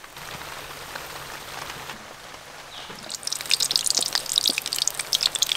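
Kachuris deep-frying in a kadai of hot oil, sizzling. The sizzle is quieter at first, then about three seconds in it becomes a loud, dense crackle of bubbling oil.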